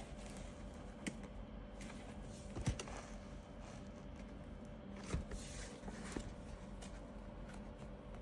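Quiet handling sounds of a shoe and its packaging: a few soft taps and light rustles, the sharpest a little under three seconds in and another about five seconds in, over a faint steady hum.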